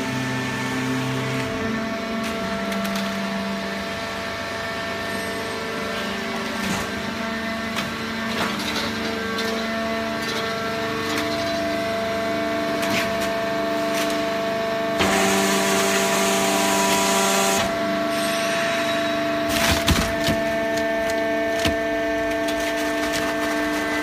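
Hydraulic horizontal baler running: a steady machine hum with several fixed tones, a hiss lasting a couple of seconds a little past the middle, and a few sharp knocks soon after.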